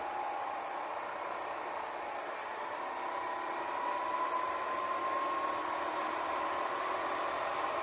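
Go-kart engine running under throttle. Its pitch rises steadily from about halfway through as the kart accelerates out of a corner, over a steady hiss of wind.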